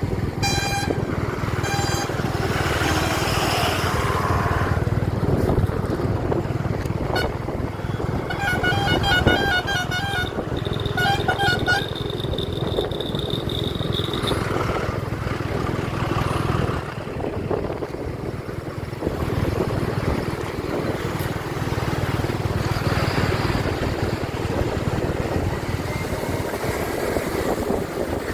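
Motorcycle running along the road under steady wind and engine noise. A vehicle horn beeps briefly about a second in, then sounds in rapid pulses from about eight to twelve seconds in, ending in a short held tone.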